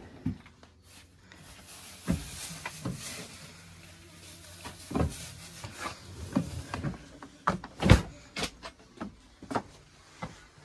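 Footsteps, knocks and rustling as someone climbs into a motorhome and moves through its cabin: irregular thumps over a rustling hiss in the first half, with the sharpest knock about eight seconds in.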